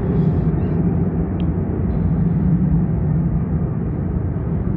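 Engines of a formation of three jet aircraft passing overhead, heard as a steady low rumble.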